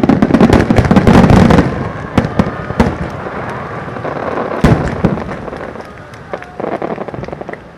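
Star mine fireworks barrage by Marugo: a dense, rapid string of shell bursts for the first couple of seconds, then scattered bangs with one loud burst about four and a half seconds in, and a run of smaller cracks near the end.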